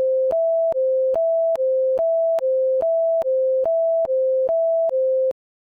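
Electronic hi-lo alert tone: two steady pure tones, the higher only slightly above the lower, alternating about every 0.4 s with a small click at each change. It stops abruptly near the end.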